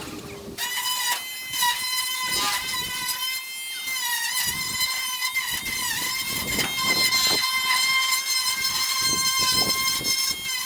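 Steady high-pitched whine of a small electric power-tool motor, dipping briefly in pitch twice as it takes load, with scraping and knocking from the work.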